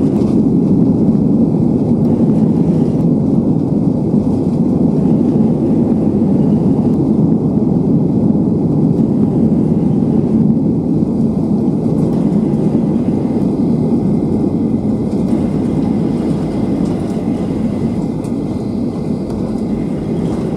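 Cabin noise of a Boeing 737-800 rolling out on the runway just after touchdown: a loud, steady rumble of engines and wheels that eases off gradually in the second half as the jet slows.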